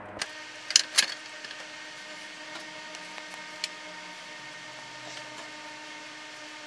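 A few sharp clinks of a small steel plate knocking against a jar as it is lifted out of rust-remover solution, then two lighter ticks of handling, over a steady low hum.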